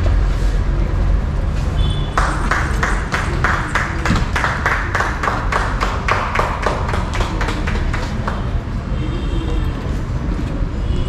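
A rapid, even series of sharp clicks, about five a second, starting about two seconds in and lasting about six seconds, over a steady low hum.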